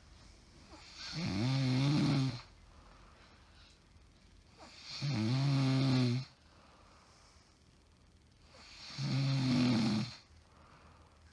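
A woman snoring in her sleep with sleep apnea: three loud snores about four seconds apart, each lasting just over a second, with quiet between them.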